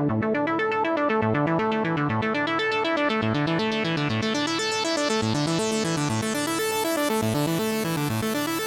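GForce Oberheim SEM software synthesizer playing a fast repeating arpeggio of stepped notes that climb and fall in pitch. The filter opens gradually, so the sound grows brighter and buzzier from about halfway through.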